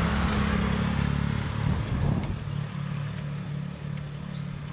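Small motorbike engine running steadily as it rides away, its sound fading gradually.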